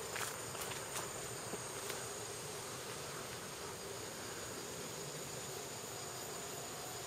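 Steady high-pitched insect chorus, with a few light clicks in the first two seconds.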